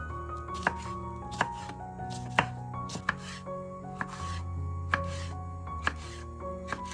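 Knife chopping food on a cutting board, slow single sharp chops about once a second, over soft background music with held notes and a low bass.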